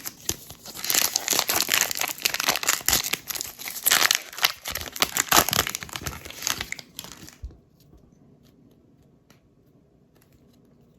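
Plastic wrapper of a trading-card pack being torn open and crinkled in the hands, a dense crackling rustle that stops about seven and a half seconds in.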